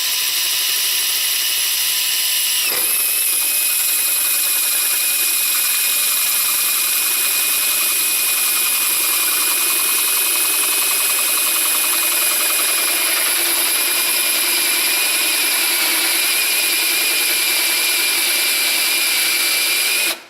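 Electric drill driving a hole saw through a wooden door to bore the main lock hole, running steadily under load. Its pitch drops slightly a few seconds in as the cutter bites into the wood, and it stops suddenly at the end.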